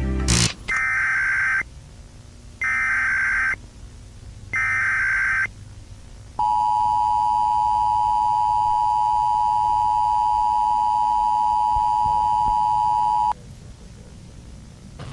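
Emergency Alert System tones: three short data bursts of the SAME header, about a second apart, then the two-tone EAS attention signal held steady for about seven seconds before cutting off suddenly. Together they announce an emergency warning broadcast.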